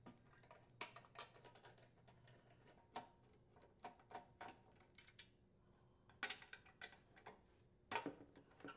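Faint, irregular clicks and light knocks of hand tools, a socket wrench and then a screwdriver, working the fasteners on a Briggs & Stratton lawn mower engine, with a cluster of sharper clicks about six seconds in and another near the end.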